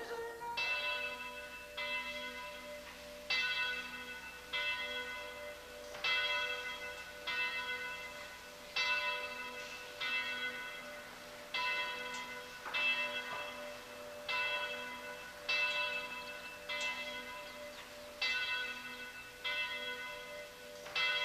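Church bell tolling in an open steel-frame tower, struck evenly about once every 1.3 seconds. Each stroke rings on with a lingering hum into the next: the bell ringing for Sunday mass.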